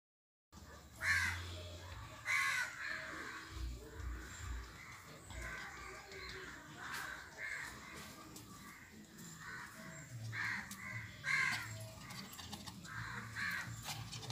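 Repeated short animal calls, loudest about a second in, just after two seconds, and around eleven seconds.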